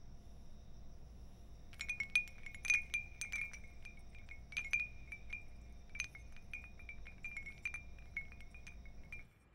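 A hanging wind chime jingling as a hand touches it: quick, irregular clinks, each ringing on at the same bright pitch. It starts about two seconds in and cuts off abruptly near the end.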